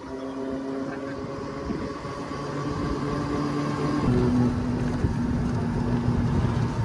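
Motor vehicle engine running under way, with a steady drone whose pitch steps to a new note about four seconds in as the low rumble grows louder.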